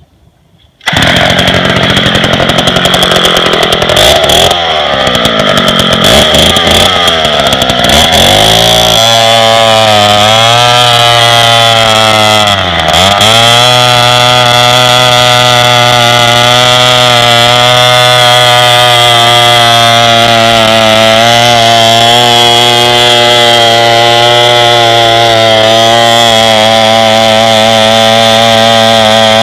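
Early-1970s Homelite Super Whiz 66 gear-drive bow chainsaw running at high throttle while cutting white oak. It comes in abruptly about a second in, its pitch wavering unevenly at first, then settles into a steady drone with two brief dips in pitch as it loads up in the cut. This is a geared, slow-cutting saw.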